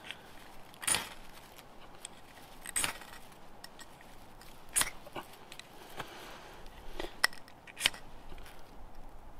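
Walmart fire steel (ferro rod) scraped with its striker over birch bark tinder: about seven short, sharp scrapes at uneven intervals. The rod is short, and he can't get a good stroke with it, so the sparks are not yet catching.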